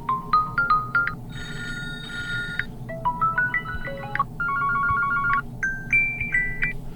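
Huawei Nova 11 smartphone ringtones playing: short electronic melodies of bell-like notes, the tune changing every second or so as one phrase gives way to the next.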